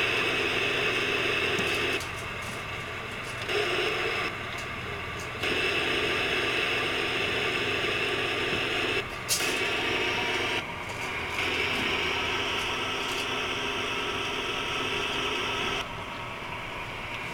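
Volvo Penta sterndrive boat engines running during joystick docking. The engine and water noise steps up and down abruptly every few seconds as the drives are engaged and released, with one sharp click about nine seconds in.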